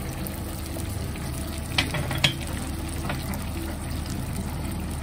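Fried pomfret sizzling and simmering in thick coconut milk in a non-stick pan: a steady bubbling, frying hiss over a low steady hum, with two light clicks about two seconds in.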